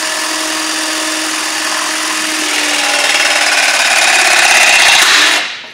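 Portable hydraulic lugging tool's motor and pump running as its head presses a lug into aluminum compressed-air pipe, the pitch sagging slightly and the sound growing louder as it presses. It shuts off about five seconds in, once the crimp is complete.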